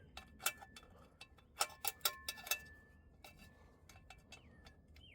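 Small hand ratchet with a 7mm socket clicking in irregular bursts as bolts are tightened down, the loudest clicks in the first half.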